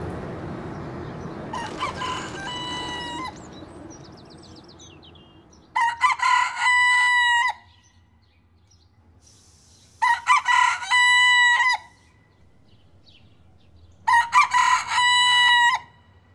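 A white broiler rooster crowing four times, the first call fainter and the next three loud, each about a second and a half long and roughly four seconds apart. A passing airplane's rumble fades out over the first few seconds.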